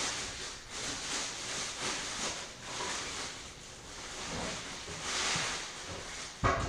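Packaging rustling and scraping in repeated waves as a new chop saw is lifted out of its box, with one sharp knock near the end.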